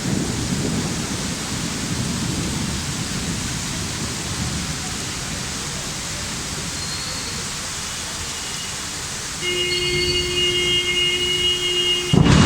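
Heavy rain falling steadily, with a low rumble in the first few seconds. Near the end a steady tone of several notes holds for about three seconds.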